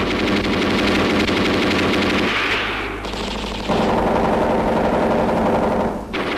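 Rapid machine-gun fire rattling almost without pause, with a brief break near the end.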